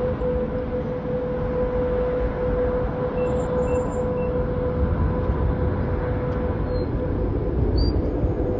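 Sukhoi Superjet 100's twin SaM146 turbofans at take-off power: a steady jet rumble with a held whine that fades away about two-thirds of the way through.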